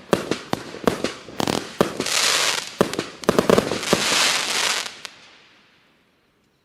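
A 98-shot, 0.9-inch-calibre fireworks cake firing its last volleys: quick sharp reports several a second, with long crackling hisses of bursting stars about two and four seconds in. The firing stops about five seconds in and the sound fades away.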